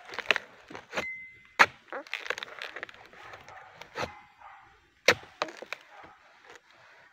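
Oil palm harvesting chisel (dodos) on a pole chopping into the stalk of a ripe fruit bunch: a series of sharp, irregularly spaced chops into fibrous wood, with rustling of dry fronds between the blows.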